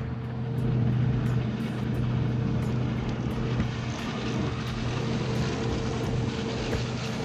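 A steady low drone with a faint, even ticking about three times a second, as a spinning reel is cranked against a hooked fish.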